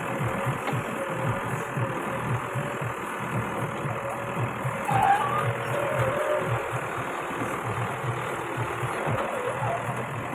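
Caterpillar backhoe loader's diesel engine running with an even low chugging while the backhoe arm works. A brief higher-pitched sound comes about five seconds in.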